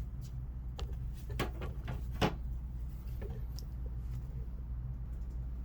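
A handful of light clicks and knocks from parts being handled on the partly stripped scooter, over a steady low hum.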